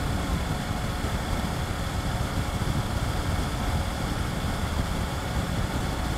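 Steady wind rumble buffeting the microphone at highway speed on a Triumph Tiger 900 GT Pro, with the bike's three-cylinder engine running steadily underneath.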